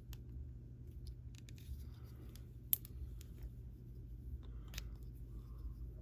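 Small plastic clicks and scrapes as a crimped pin terminal with its silicone wire seal is pushed into a waterproof wire connector housing, with one sharp click a little under three seconds in and a few more near five seconds, over a faint steady low hum.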